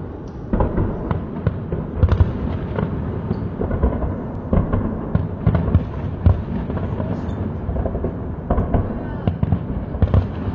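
A dense, irregular run of sharp bangs and pops, several a second, with voices underneath.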